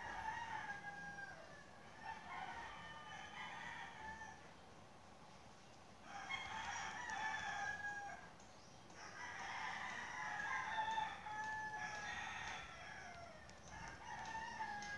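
Faint background calls of fowl, about six of them, each lasting a second or two with a slight glide in pitch.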